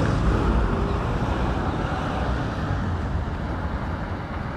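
Roadside traffic noise: a steady rumble and hiss of vehicles on a highway.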